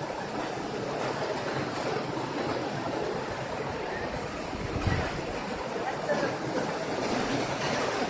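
Steady rush of water falling at a waterfall's main fall. A brief low thump about five seconds in.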